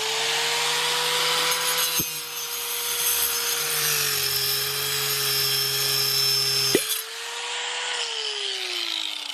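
A small electric motor whining up to speed, running steadily with a hissing rush, then winding down in pitch near the end; two sharp clicks sound along the way.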